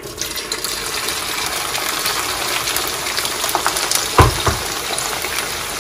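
Sliced bitter gourd dropped into hot oil in a frying pan, setting off a sudden burst of sizzling with many small crackles that carries on steadily as the pieces fry. About four seconds in, a single low thump.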